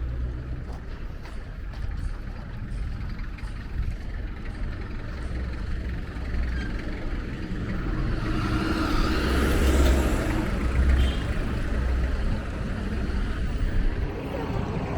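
Street traffic: a steady low rumble of passing vehicles, with one vehicle passing close and rising to its loudest about two-thirds of the way through before fading.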